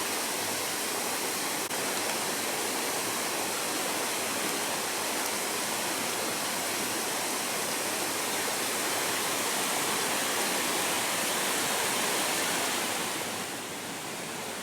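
Nachi Falls, a waterfall with a single drop of about 133 metres, giving a steady, even rush of falling water. The rush eases a little near the end.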